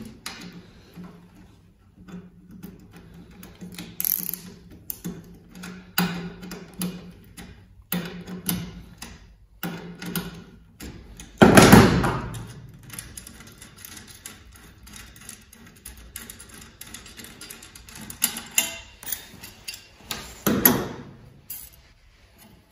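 Small metal clicks and rattles as a bolt is unscrewed by hand from a freshly set threaded rivet nut and the homemade rivet-nut tool is worked loose. There are two louder metal clunks, the loudest about halfway through and another near the end.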